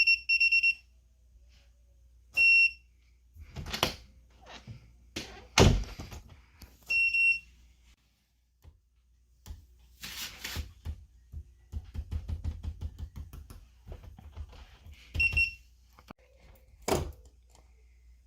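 Keypad of an electronic fingerprint door lock beeping: a quick double beep at the start, then single high beeps about 2.5, 7 and 15 seconds in. Between them come handling knocks and thunks on the lock and door, the loudest about 6 seconds in, and a run of quick light taps around 12 seconds.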